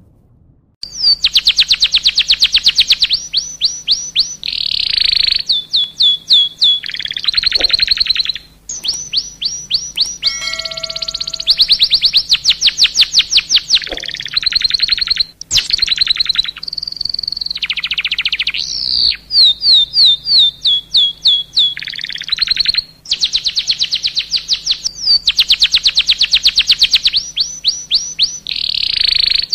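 Domestic canary in full song: a long, nearly unbroken song of fast trills, each run a rapid string of repeated high notes sweeping downward, with short breaks between phrases and a few steadier held notes partway through. It starts about a second in.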